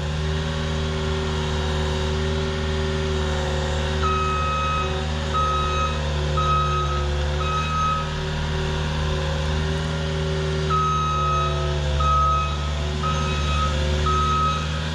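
Diesel engine of an ASV tracked skid loader running steadily under load, with a backup alarm beeping about once a second as it reverses: one run of beeps a few seconds in and a second run after a short pause.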